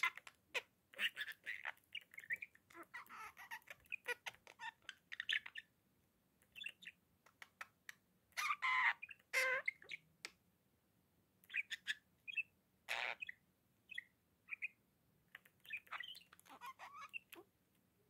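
Budgerigar chattering in short bursts of chirps, squawks and clicks with brief pauses between them. The loudest burst comes about halfway through.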